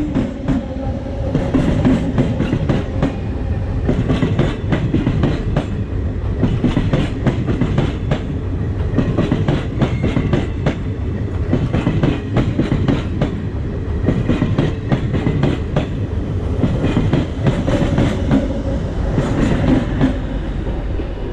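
DEMU passenger train passing at speed: a steady rumble of steel wheels on the rails with rapid, uneven clickety-clack as the wheels pass over the rail joints.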